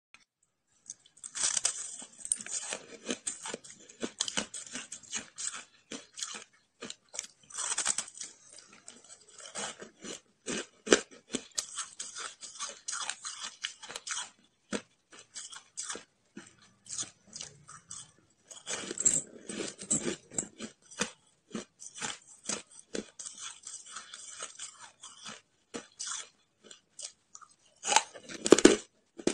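Hard, frosty shaved ice being bitten and chewed close to the mouth: a rapid, uneven run of sharp crunches and crackles, with a brief lull past the middle and a louder burst of crunching near the end.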